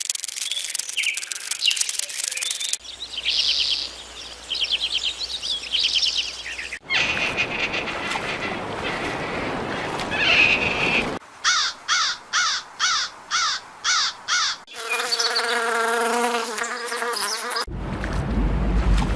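A run of short animal-call clips cut hard one into the next: high chirps and rapid trills like birds or insects, then seven evenly spaced chirps about two a second, then a lower, drawn-out pitched call, ending on wind and surf noise.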